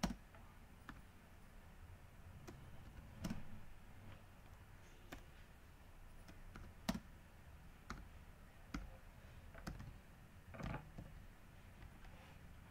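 Faint, scattered clicks of a computer keyboard and mouse, coming irregularly about once a second.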